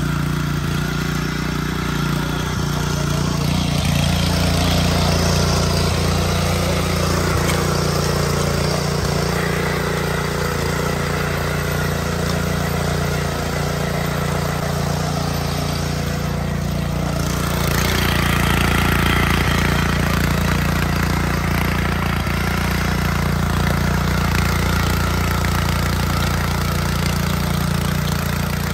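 Trâu Vàng mini tiller's 7 hp four-stroke OHV petrol engine running steadily as the machine tills soil, its note shifting slightly a couple of times.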